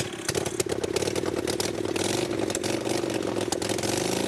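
Vintage Harley-Davidson board-track racer's V-twin engine running on its stand with no exhaust pipes, firing straight out of the open exhaust ports in sharp, uneven beats.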